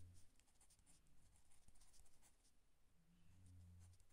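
Faint scratching of a ballpoint pen writing on notebook paper. A faint low hum comes and goes twice, at the start and near the end.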